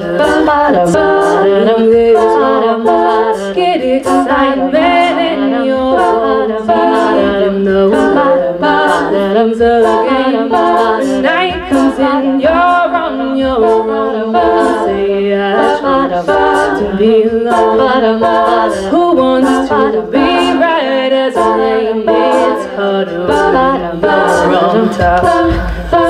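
Women's a cappella group singing layered harmonies over a steady beat.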